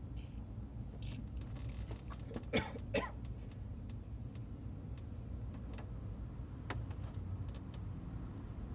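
Car engine idling with a steady low rumble. Two short coughs come close together about two and a half seconds in.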